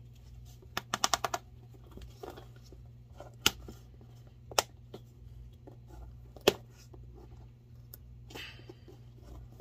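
Sharp clicks and snaps as an old cowboy-boot welt is picked and peeled away, its chain-stitch threads catching and snapping. A quick run of about five clicks about a second in, then single sharp snaps every second or two and a short scrape near the end, over a low steady hum.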